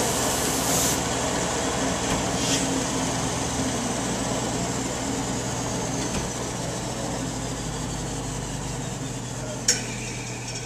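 Delta vertical belt sander running, with a wooden block pressed against the moving belt in a few brief hissing sanding passes to round off a sharp corner. About halfway through the machine is switched off and runs down, its whine falling in pitch as the belt slows. There is a sharp click near the end.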